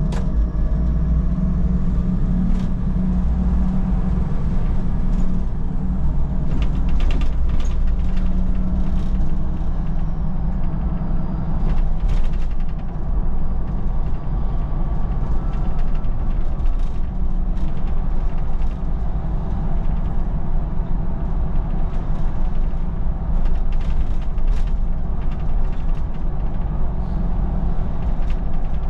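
Solaris Urbino 12 city bus on the move: a steady low drone from its engine and drivetrain, with frequent short creaks and rattles from the bus body and fittings.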